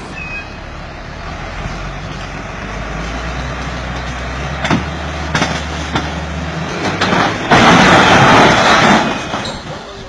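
Heavy truck engine running with a steady low hum and a few sharp knocks, then a loud, noisy crash lasting about a second and a half near the end.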